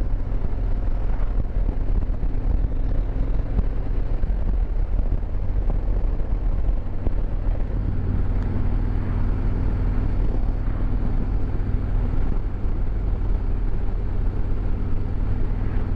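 2022 Harley-Davidson Road Glide Limited's Milwaukee-Eight 114 V-twin running steadily while riding, a low engine rumble under a steady rush of wind and road noise, the engine note shifting slightly partway through.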